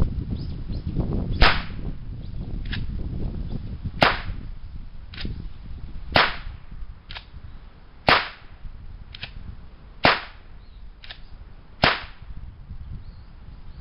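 Six blank shots fired from the 3D-printed plastic Zig Zag revolver, sharp cracks about two seconds apart, with a fainter click between each pair of shots.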